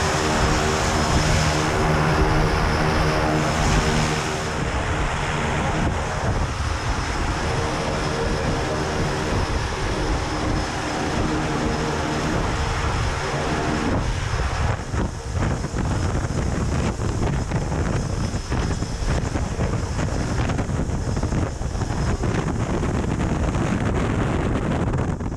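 Single-engine propeller jump plane running on the ground, a steady engine and propeller drone. Its even hum blurs into a denser rumble after about five seconds.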